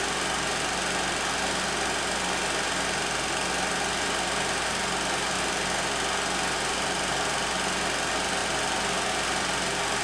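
A 16mm film projector running steadily: a continuous motor whir with a low hum and no change in pace.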